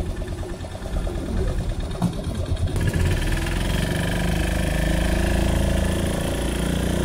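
Boat outboard motor idling with a fast, uneven pulse, then opening up to a louder, steady run about three seconds in as the boat gets under way.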